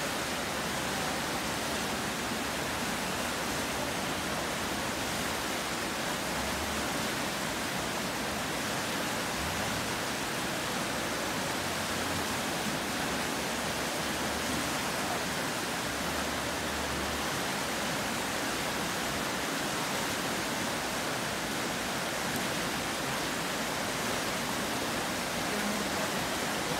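Fast creek water rushing through whitewater rapids: a steady, even rush with no breaks.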